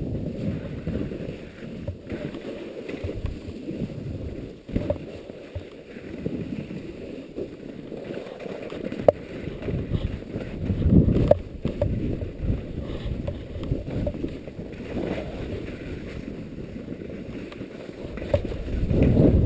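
Strong wind buffeting an action camera's microphone: a low, gusting rumble that swells and fades unevenly, with a few sharp knocks.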